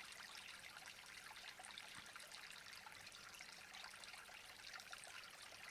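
Faint, steady running and trickling water: a waterfall ambience.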